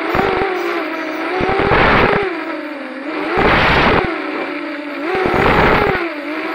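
FPV quadcopter's motors and propellers whining, the pitch rising and falling with throttle. Three times, about two seconds apart, it swells into a louder rushing surge as the pitch climbs.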